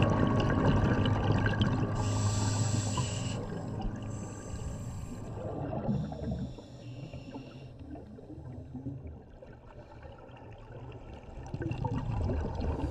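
Underwater bubbling and gurgling from scuba diving, heard through an underwater camera.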